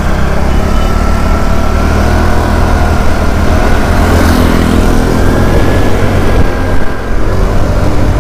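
Motorcycle running steadily on the road, its engine under a heavy low rumble of wind on the rider's microphone.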